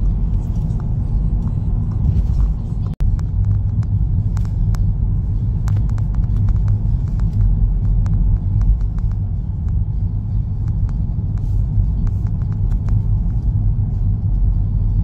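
Steady low rumble of a car's engine and tyres, heard from inside the cabin while driving, with faint scattered ticks above it. The sound drops out for an instant about three seconds in.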